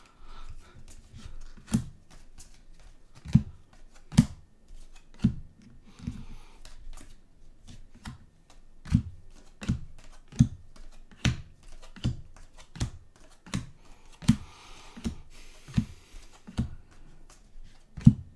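A stack of paper Topps trading cards being flipped through one by one, each card landing with a light tap, roughly one or two a second. Twice there is a brief stretch of soft rustling as cards slide against each other.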